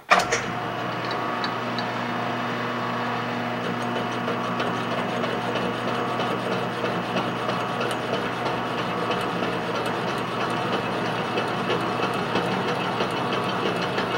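Vertical milling machine switched on and running steadily, its end mill cutting a fish-mouth notch into a metal tube held in the vise: a steady motor hum under a busy mechanical cutting noise.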